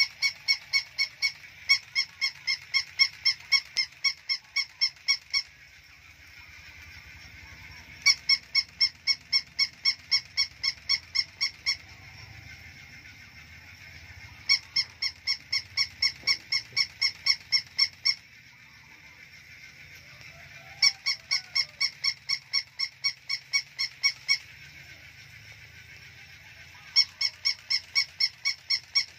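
Battery-operated plush toy puppy giving rapid, high, squeaky electronic yaps, about three a second. They come in runs of four to five seconds with short pauses between them, five runs in all.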